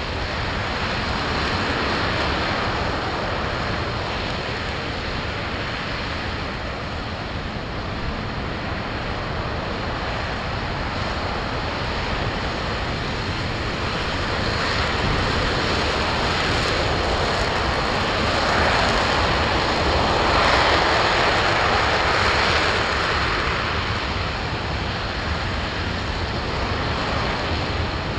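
RS-25 liquid hydrogen/liquid oxygen rocket engine in a sustained hot-fire on a test stand, running continuously as a steady, wide rushing noise. It swells somewhat louder about two-thirds of the way through.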